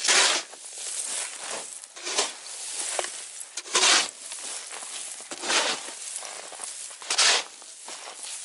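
Steel ice chisel chopping into lake ice to widen a drilled hole: five strikes, about one every one and a half to two seconds, with ice chips scraping between them.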